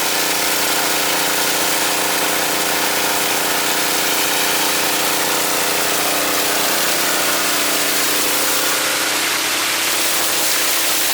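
An engine running steadily at a constant speed under the even hiss of water spraying during a wash-down.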